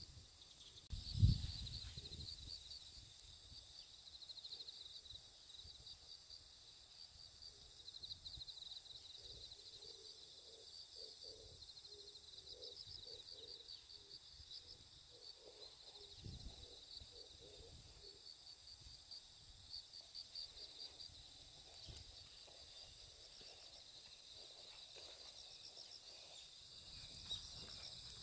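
Insects chirping in continuous rapid trills, with a few low thumps about a second in and around the middle.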